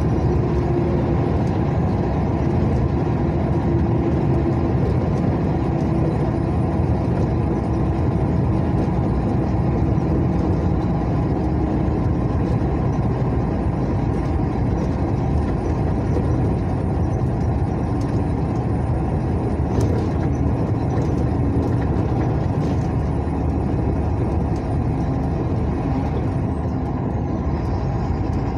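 Vehicle driving along a highway: a steady drone of engine and road noise, with a faint engine tone that wavers slightly.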